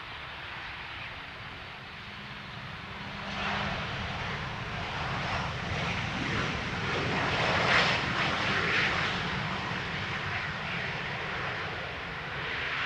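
Boeing 737-800's CFM56 jet engines on the landing rollout: a steady rushing jet noise that swells about three seconds in as reverse thrust is applied, loudest as the airliner passes by, then easing a little.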